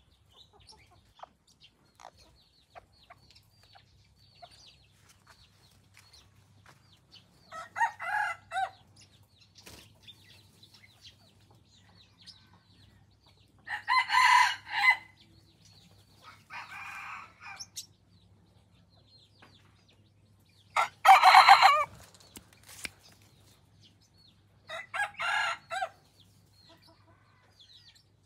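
Junglefowl decoy roosters crowing: about five short crows a few seconds apart, the two loudest about halfway and about three-quarters of the way through, with one fainter crow between them.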